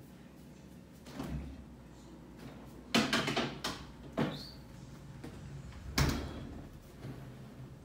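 A few knocks and clatters of things being handled and shut, like a cupboard or door: a small knock about a second in, a quick cluster about three seconds in, another knock with a short rising squeak, and the loudest knock about six seconds in.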